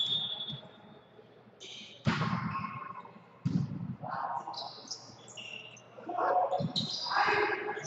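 Volleyball rally: the ball is hit sharply about two, three and a half and six and a half seconds in, amid players' voices.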